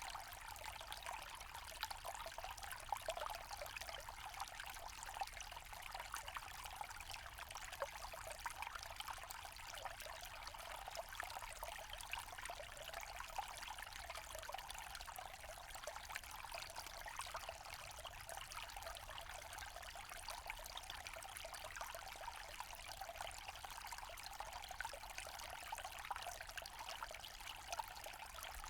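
A small forest stream running over stones: a steady trickling and babbling of water.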